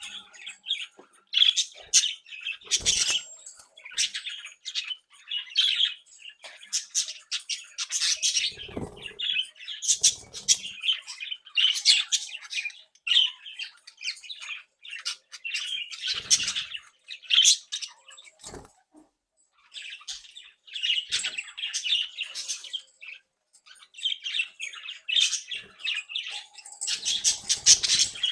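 Several budgerigars (budgies) chattering: rapid chirps, warbles and squawks, with a few short thumps and wing flaps among them.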